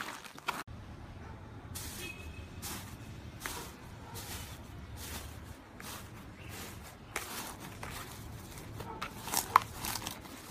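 Hands squeezing and kneading a thick teal slime in a plastic tub, making soft crackling and popping sounds with each press. The crackles come more often and louder near the end, over a low steady hum.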